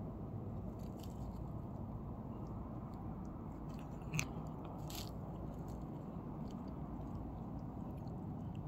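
A cat chewing food from a plastic bowl: small scattered clicks of eating, with one louder sharp click a little after four seconds in, over a steady low background noise.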